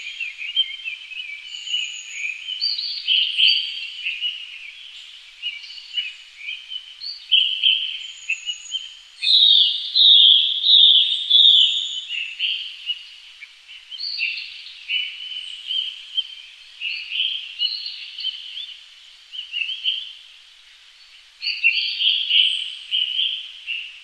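Birds chirping and calling in many short, overlapping phrases, with a brief lull about twenty seconds in.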